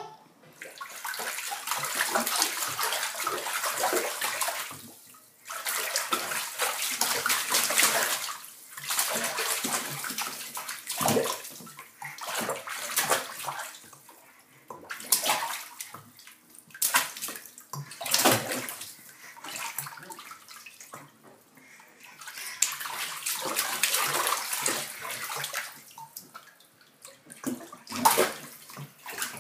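Water splashing and sloshing in a bathtub as a baby crawls and slaps at it, in bursts of a few seconds with short lulls between them.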